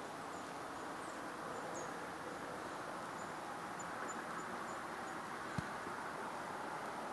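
Quiet woodland ambience: a steady soft hiss with scattered faint, high, short chirps. A single brief knock about five and a half seconds in.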